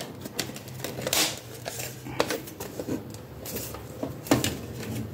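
Irregular clicks and knocks of a small plastic mini paper trimmer being handled and worked out by hand, the sharpest about a second in and again about four seconds in.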